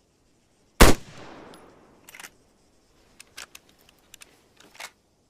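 A single shot from a CZ 550 bolt-action hunting rifle: a sharp crack with an echo that dies away over about a second, followed by several faint short clicks.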